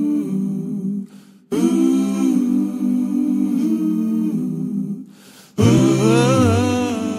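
Hummed a cappella music: voices holding chords in harmony, in three long phrases broken by short pauses about one and five seconds in. A lower part joins in the last phrase.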